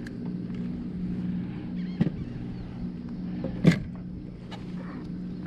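A steady low engine hum, with two sharp knocks about two seconds and three and a half seconds in, the second louder.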